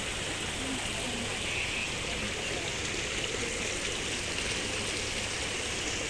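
Water running steadily over a rock into a pond, a small waterfall giving an even splashing rush.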